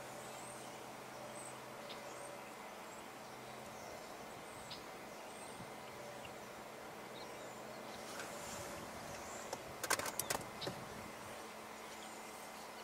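Faint outdoor background of insects and short, high, distant bird chirps, with a quick cluster of sharp clicks about ten seconds in.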